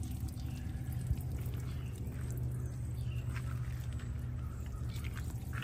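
Outdoor background: a steady low hum with a few faint, short chirps in the middle and near the end.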